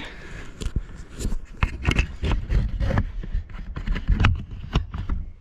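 Irregular knocks, clatter and scrapes of wood being handled as a freshly sawn elm slab is stacked, with heavy low thumps.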